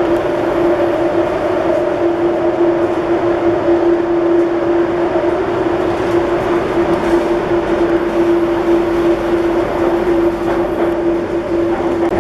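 Delhi Airport Express Line metro train running steadily, heard from inside the carriage: an even rumble of running noise with a constant droning tone of unchanging pitch.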